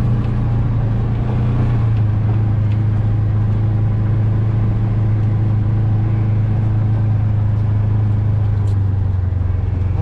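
Vehicle engine running at a steady low drone, heard from inside the cab while driving slowly across a rough pasture.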